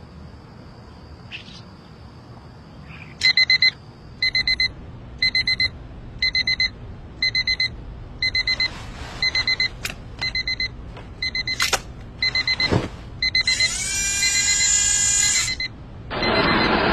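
Digital alarm clock beeping in quick bursts of four, a burst about once a second, starting about three seconds in. Near the end a louder rushing noise briefly covers the beeps, twice.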